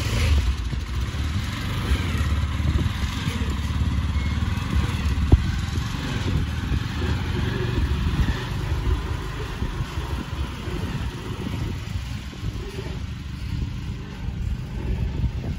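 Small engine of a Toyo cargo motor tricycle, loaded with soil, running as it drives away, getting somewhat quieter toward the end. A single sharp knock about five seconds in.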